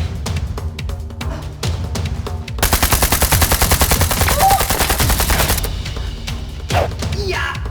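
A rapid burst of machine-gun fire lasting about three seconds, starting about a third of the way in, over background music with a heavy bass.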